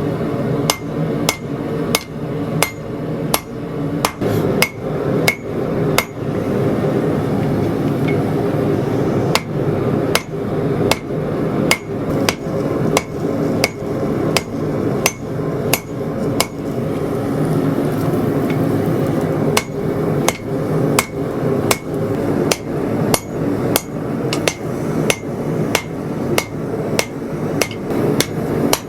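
Hand hammer striking hot 80CrV2 steel on an anvil, drawing out a blade's tang: sharp ringing blows about twice a second, with two short breaks in the rhythm, over a steady background hum.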